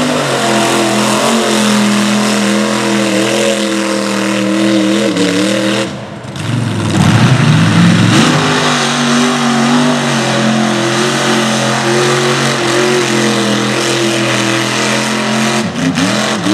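Mega truck's engine running hard at high, steady revs as it digs through mud. About six seconds in the revs drop away and climb back up, and near the end they waver up and down.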